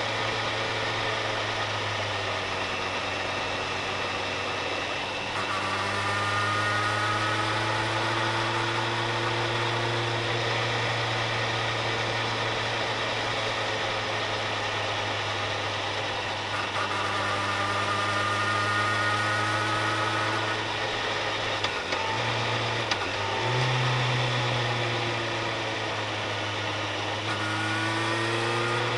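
Engine of a car being driven on a road, running steadily with a low hum whose pitch rises in slow sweeps as it gathers speed. About two-thirds of the way through the hum briefly breaks and steps up in pitch.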